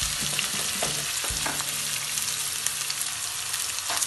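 Freshly added chopped onions sizzling in hot oil in a wok, a steady hiss with scattered small pops.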